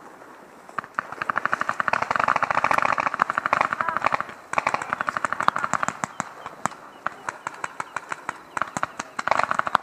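Paintball markers firing in rapid bursts of many shots a second. A long burst starts about a second in, another follows, then scattered single shots, and a further burst comes near the end.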